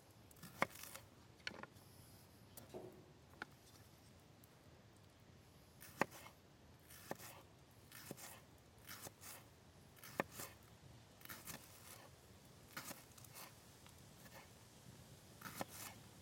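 Faint, scattered light clicks and knocks of food preparation, as utensils and ingredients are handled, with irregular gaps of about a second or two.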